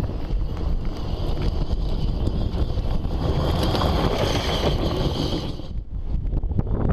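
Wind rumbling on the microphone, a dense steady noise with a thin hiss above it. Near the end the high hiss drops away briefly before the noise returns.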